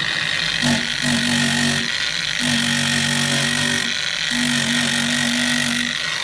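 Corded electric coating-removal tool running steadily while stripping Tectyl underbody coating from the van's floor pan, with a high steady whine; a lower buzz comes in three times, each for a second or more.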